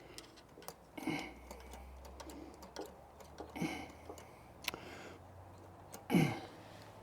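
Scattered light clicks and taps of hand tools working at the small hose clamps on a Honda small engine's carburetor, with a louder short handling sound about six seconds in.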